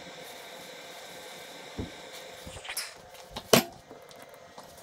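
Electric space heater's fan running steadily, then a few knocks ending in one sharp, loud knock about three and a half seconds in.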